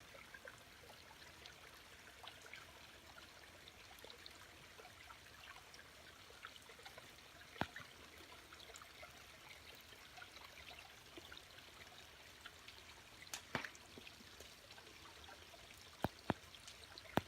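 Faint stream water trickling and running steadily. A few sharp clicks sound about halfway through and near the end.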